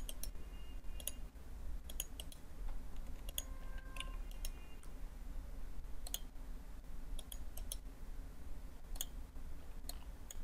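Computer mouse clicking: about a dozen separate sharp clicks, several in quick pairs, over a low steady hum.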